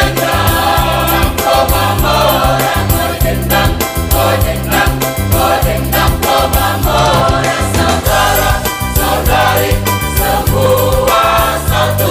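Mixed choir of male and female voices singing a song in harmony.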